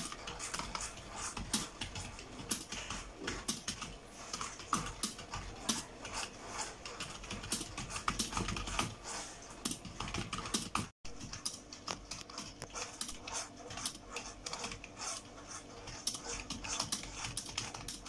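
Fast continuous typing on a computer keyboard: a quick, uneven stream of key clicks.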